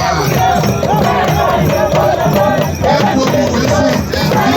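Live music with several voices singing or chanting together over percussion, with crowd noise.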